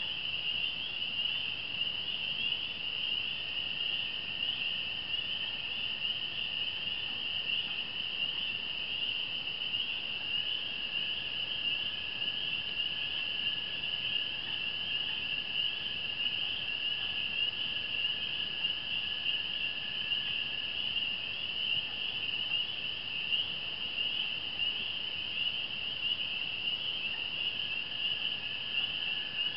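A dense chorus of small frogs calling together: a steady, high-pitched, shimmering wall of sound with no let-up. A fainter, lower drawn-out trill comes and goes beneath it.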